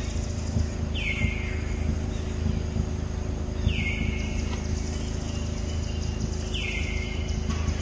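A bird calls three times, about three seconds apart; each call is a whistle that drops in pitch and then holds a steady note for about half a second. A steady low rumble runs underneath.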